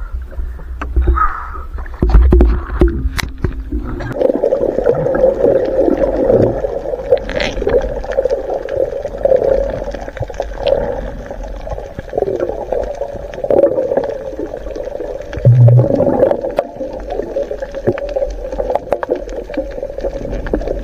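Splashes and a few knocks at the water's surface for about four seconds, then the muffled, gurgling rush of water as heard from underwater.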